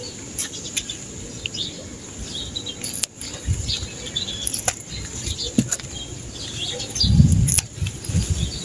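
Water spinach leaves and vines rustling as they are handled and picked by hand, with sharp snaps of stems breaking off. About seven seconds in there is a louder, low rustling bump.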